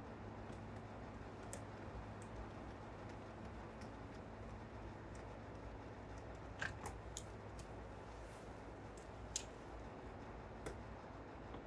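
Light clicks and ticks of a screwdriver working the screws out of a car's plastic door trim panel, a few together a little past the middle and two more later, over a low steady hum.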